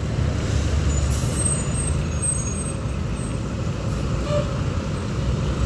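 Diesel engine of a large coach running steadily as the bus pulls away past the listener, with a brief hiss about a second in.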